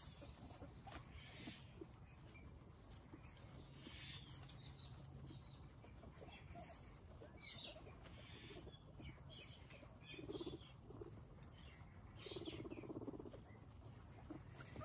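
Faint sounds of a group of guinea pigs feeding: scattered soft clicks of chewing and rustling in straw and grass, with small high squeaks now and then and two short low pulsing sounds near the end.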